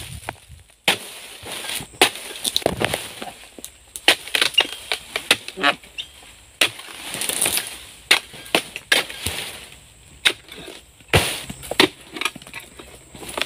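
Pole-mounted harvesting sickle cutting oil palm fronds: irregular scraping, cracking strokes against the frond bases and rustling of the palm leaves, with one sharp, loud knock about eleven seconds in.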